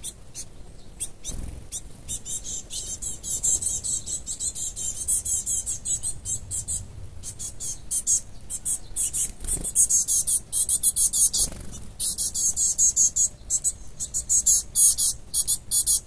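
Rapid, continuous high-pitched chirping, many strokes a second, with a few low thumps about a second and a half, nine and a half and eleven and a half seconds in.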